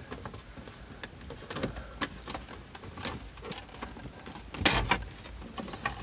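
Plastic ignition-lock housing on a Mercedes ML320 steering column clicking and rattling as it is worked loose by hand, with a louder cluster of clicks about three-quarters of the way in.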